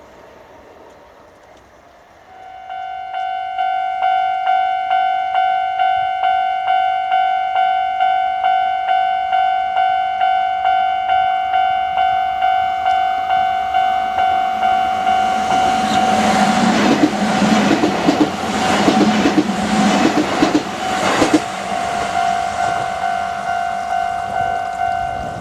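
Japanese railway level-crossing warning bell starts ringing about two seconds in, a repeating electronic ding at about two strikes a second. Partway through, a Kintetsu Minami Osaka Line train passes over the crossing for about six seconds, its wheels clacking over the rail joints, while the bell keeps ringing.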